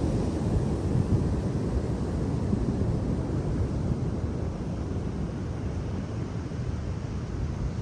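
Sea surf washing steadily as a low, even noise, with wind buffeting the microphone.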